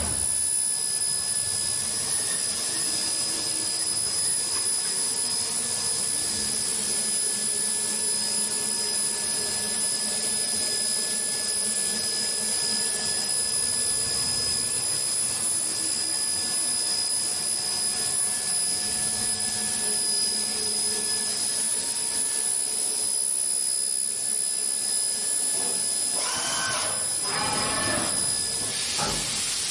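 DMG DMU 100 monoBLOCK 5-axis machining centre running: a steady mechanical hum and hiss with a constant high whine. A short warbling sound comes in a few seconds before the end.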